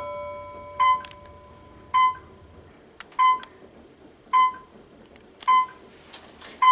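Modernized Otis elevator car sounding a short electronic floor-passing beep about once a second as it travels between floors, six beeps in all. A multi-tone chime is still ringing out at the start.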